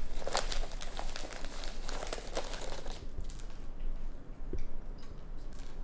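Raccoon rummaging nose-first in a Goldfish cracker carton, crinkling and rustling its plastic liner bag. The crinkling is dense for about three seconds, then thins out to scattered crackles.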